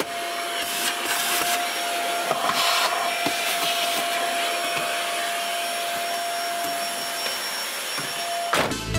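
Vacuum cleaner running steadily with a constant whine as its hose and metal wand work the car interior. The suction hiss swells a few times in the first few seconds as the nozzle moves. It stops abruptly near the end, when electronic music with a beat comes in.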